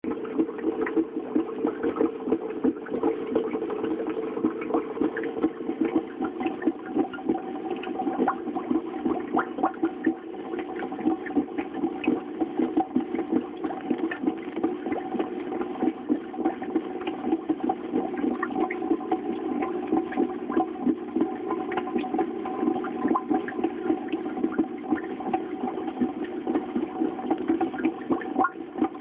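Turtle tank's filter running: water splashing and bubbling steadily down a rock decoration, over a steady faint hum.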